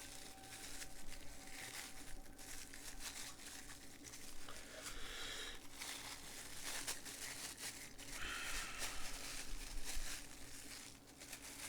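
Plastic packaging crinkling and rustling, with some tearing, as camcorder accessories are unwrapped by hand; irregular bursts of handling noise throughout.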